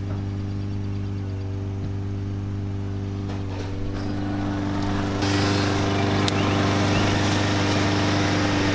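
ISR electric radiator fans switching on, a rushing air noise that builds about three and a half seconds in and steps up louder about five seconds in, over a steady low hum.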